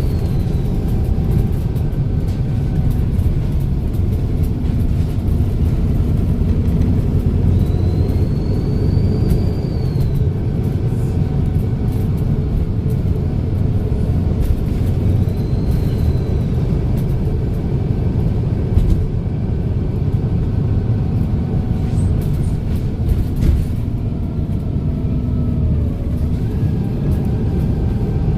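Volvo B7RLE single-deck bus's six-cylinder diesel engine running under way, a steady low rumble. A high turbo whistle rises and falls over it a few times, and a lower tone slides up near the end.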